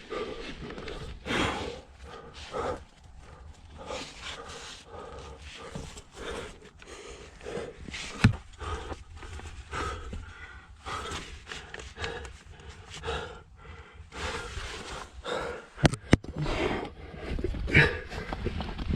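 A climber breathing hard and grunting while squeezing up a tight rock chimney, with scuffs and a couple of sharp knocks against the rock, around 8 and 16 seconds in.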